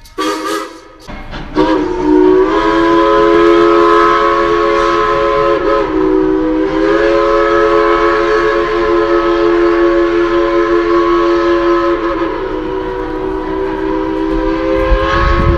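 Steam locomotive's chime whistle blowing a long, held chord over a hiss of steam. It steps up in pitch a couple of seconds in and wavers with brief dips about six and twelve seconds in. A low rumble comes up near the end.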